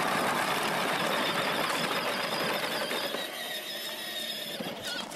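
Battery-powered toy John Deere Gator ride-on driving off, its plastic wheels crunching over gravel and its small motor whirring. The sound fades after about three seconds as it moves away onto grass.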